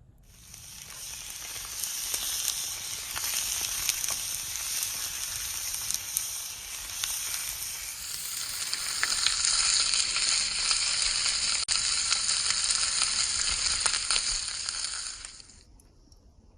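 Steady sizzling hiss with small crackles. It starts just after the beginning, shifts in pitch about halfway through, and cuts off about a second before the end.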